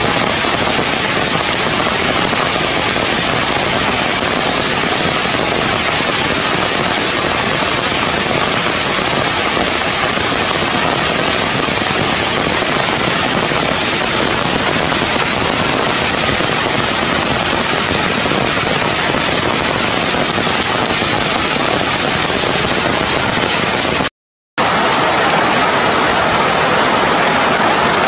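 Heavy rain falling steadily through forest leaves, a dense unbroken hiss that cuts out for a split second near the end.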